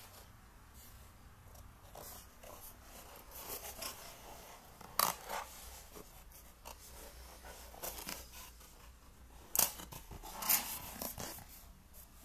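Cardboard box and packaging handled by hand: rustling and scraping with a few sharp clicks and knocks, the loudest about five seconds in and again near ten seconds.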